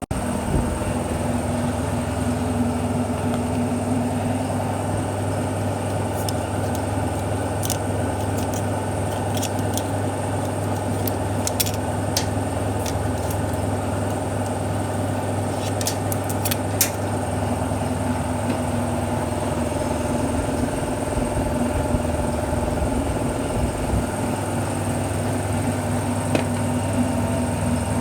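A vehicle engine idling steadily, with a cluster of sharp ticks or clicks about a third of the way through.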